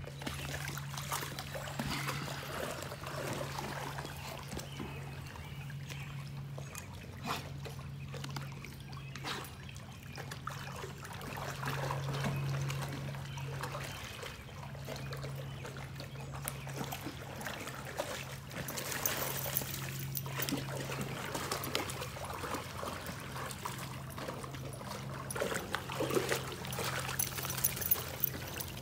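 Creek water splashing and trickling as a Newfoundland puppy wades in and swims through the shallows, with scattered small splashes.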